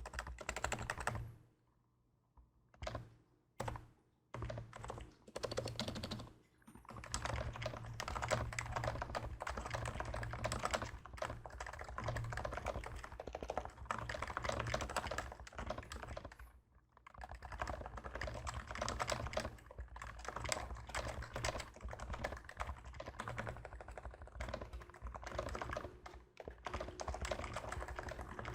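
Typing on a Realforce R2 PFU Topre keyboard fitted with DesKeys v3 domes, DesKeys Topre silencing rings and lubed sliders, a deep "thoc-cy" keystroke sound: fast continuous keystrokes with brief pauses near the start and about two-thirds of the way through.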